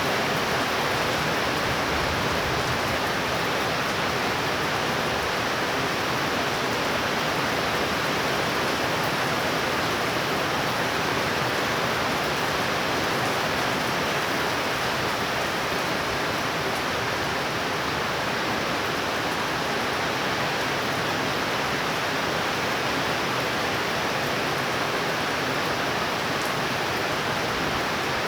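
Heavy thunderstorm rain pouring steadily, an even, unbroken hiss.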